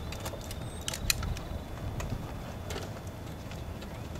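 Scattered metal clicks and rattles of stretcher frames and strap buckles as a patient is shifted between two stretchers, the sharpest about a second in, over a steady low rumble.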